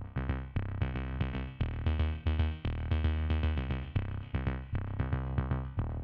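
Electronic background music with a steady beat and quickly repeating synthesizer notes over a bass line.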